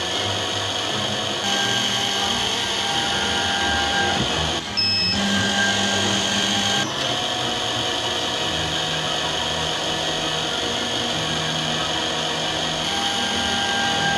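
Automatic optical lens drilling machine's drill spindle running steadily with a high whine while drilling holes in a spectacle lens. A short electronic beep comes about five seconds in.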